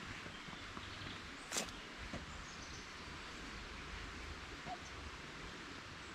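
Faint rural outdoor ambience with distant birdsong in thin, high chirps, and a single sharp tap about a second and a half in.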